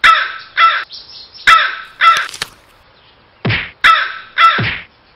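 Crow cawing: seven short caws, in two pairs and then a run of three.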